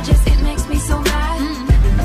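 Pop/R&B-style music with a heavy bass beat and drum hits.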